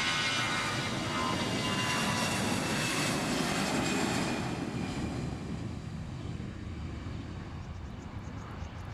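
Airbus A320's twin jet engines at high power as the airliner rolls down the runway on its takeoff run: engine noise with steady high whining tones, loud at first and fading from about halfway through as the aircraft moves away.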